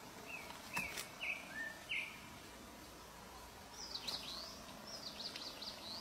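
Thrushes chirping at the nest: a few short falling call notes in the first two seconds, with a few sharp clicks, then two quick runs of high, thin chirps in the second half.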